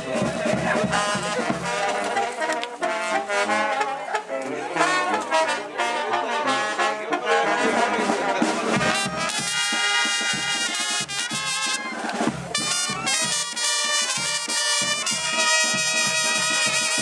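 A brass band playing: trumpets and trombones carrying the melody over a steady low bass beat.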